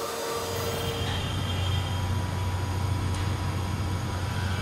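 Steady low mechanical hum over a wash of background noise, from machinery running in a workshop.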